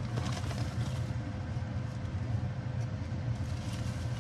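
Steady low mechanical hum with a faint constant tone, with light crinkling of a plastic bag just after the start and again near the end as hard brown sugar is broken up by hand.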